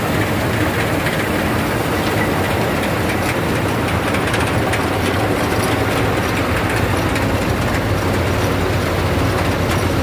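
Combine harvester running at close range while threshing wheat: a steady heavy diesel engine drone under the continuous rattle and rush of its threshing machinery.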